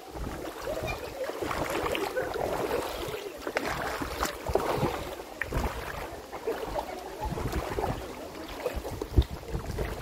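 Shallow river water rushing and splashing over rocks, with wind buffeting the microphone.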